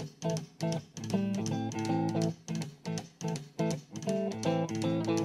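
Background music: an instrumental guitar passage of short, evenly repeated chords, a few of them held longer, with no singing.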